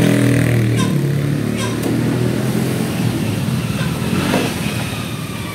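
A small engine running steadily, its hum weakening after about a second, with a few sharp knocks over it.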